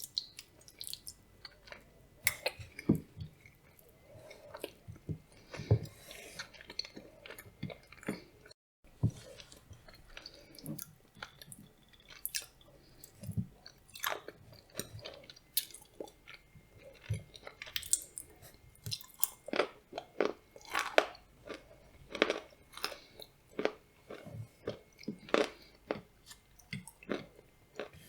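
Close-miked chewing of blueberry soufflé with nuts: many short, irregular wet mouth clicks and crunches as the nuts are bitten and chewed.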